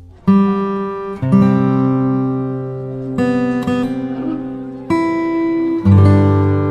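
Music: acoustic guitar chords, each struck and left to ring and fade, a new chord every one to two seconds.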